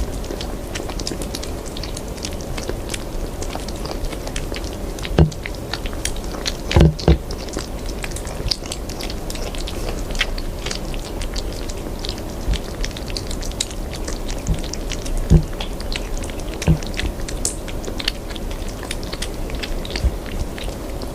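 Kitten eating close to the microphone: many quick, irregular crisp chewing clicks and crunches, with a few louder thumps about five, seven and fifteen seconds in, over a steady background hum.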